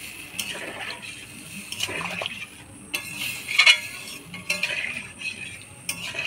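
Spatula clinking and scraping against a cooking pan as a potato curry in its gravy is stirred. There are several clinks, the loudest about halfway through.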